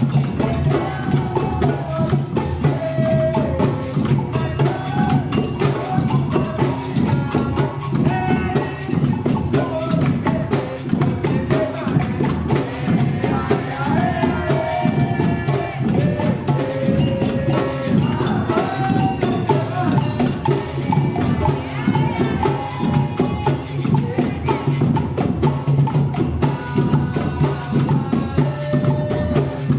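Capoeira percussion group playing a steady, driving rhythm on drums and hand percussion, with voices singing over it.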